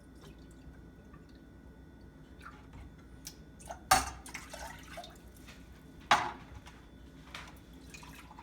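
White vinegar being measured and poured into a pot of water for pickling brine: small clicks and liquid sounds, with two loud sharp splashing knocks about two seconds apart in the middle.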